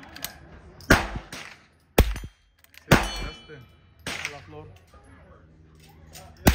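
Henry lever-action .22 rifle firing: four sharp shots about a second apart, then another near the end. Steel targets ring after some of the hits.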